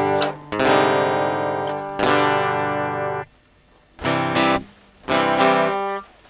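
Closing music: strummed acoustic guitar chords, each ringing about a second with short breaks between, the last two shorter.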